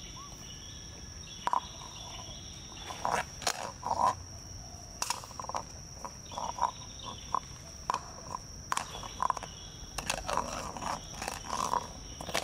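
Hollow coconut shell knocking and scraping on an asphalt road in irregular short strokes as a long-tailed macaque handles and pushes it about. A steady high insect drone runs underneath.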